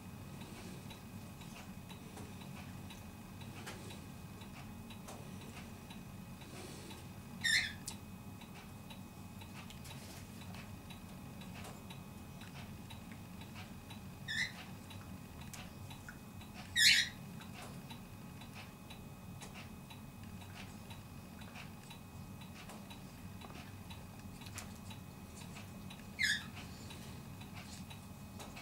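A dog and a cat play-wrestling, with four short high-pitched squeaks: one about a quarter of the way in, two close together in the middle, and one near the end. Faint regular ticking and a low steady hum underneath.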